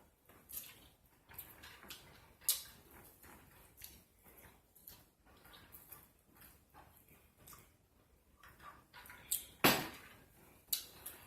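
Close-up eating sounds: chewing and small clicks and clinks of cutlery against dishes, scattered irregularly, with one louder sharp knock near the end.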